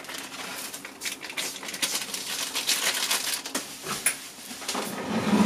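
Crinkling and rustling with many small irregular clicks and taps, as of food or packaging being handled.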